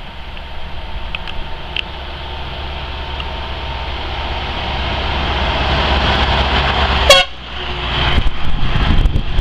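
Scania G420 truck approaching and passing by, its engine and road noise growing steadily louder. About seven seconds in, as it comes alongside, it gives one very short toot of the horn.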